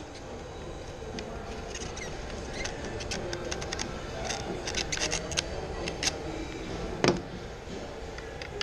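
Small clicks and taps of hard plastic parts being worked by hand on a fuel pump and filter assembly, with one louder knock about seven seconds in.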